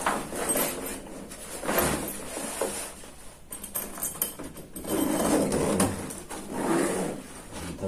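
Camouflage padded rifle bag being handled: fabric rustling and a zipper being worked, in several short rasping bursts.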